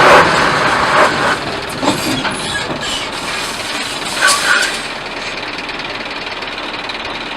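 A car crashing at speed in a crash test: a loud impact at the start, then a few sharp knocks and clanks that die away into a steady lower noise.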